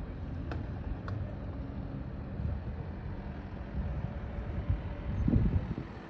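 Outdoor wind rumbling on the microphone, gusting unevenly, with a faint steady low hum underneath; a stronger gust about five seconds in.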